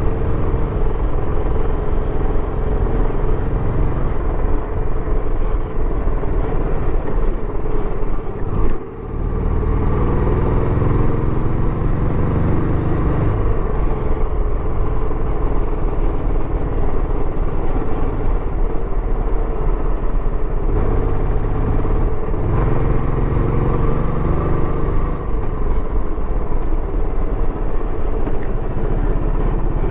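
Royal Enfield Bullet 350X's single-cylinder engine running through its stock exhaust while riding. About nine seconds in the sound briefly dips, then the engine note climbs again.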